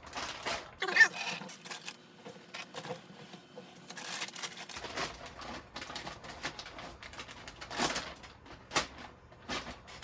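Plastic packaging and bags rustling and crinkling as the contents of a new RC truck box are unpacked, with scattered clicks and light knocks.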